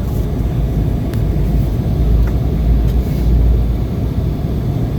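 Steady low rumble of an Embraer 190 jet's engines and airflow heard from inside the passenger cabin, swelling slightly in the middle.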